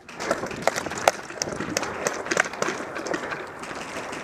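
Rustling and scuffing of a player moving quickly on foot, with irregular sharp clicks and knocks, likely gear and clothing brushing against the camera.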